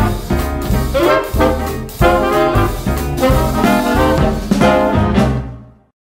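Upbeat background music with a steady beat, fading out near the end.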